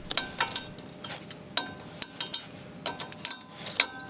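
Rotor retaining clips being worked off the wheel studs of a truck's front hub: a string of small metallic clicks and clinks, some ringing briefly.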